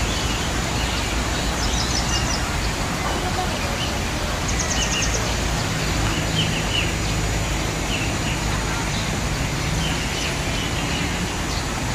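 Outdoor park ambience: small birds chirping and giving short high trills over a steady low background rumble.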